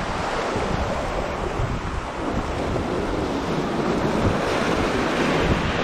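Surf washing and breaking over shoreline rocks, with wind buffeting the microphone in gusts.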